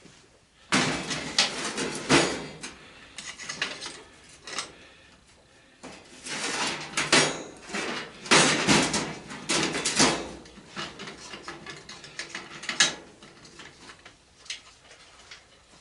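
Metal hand tools clattering and clinking while someone rummages through a set of Allen wrenches to find the right size. The clatter comes in two long spells, then trails off into a few light clicks.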